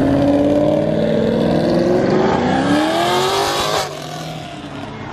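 Chevrolet Camaro engine accelerating hard, its pitch climbing, dropping at a gear change about two seconds in and climbing again. Near four seconds it cuts off abruptly to a quieter car noise.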